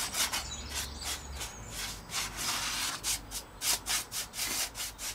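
Paintbrush bristles stroking a sealer coat onto a paper-covered model aircraft wing: quick, repeated scratchy brush strokes, a few per second.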